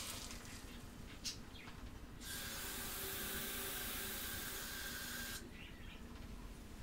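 Kitchen tap running steadily into a cup for about three seconds, then shut off abruptly. A light click about a second in.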